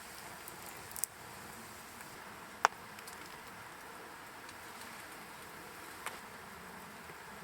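Burning firewood crackling, with a few sharp pops, the loudest about two and a half seconds in, over a steady hiss.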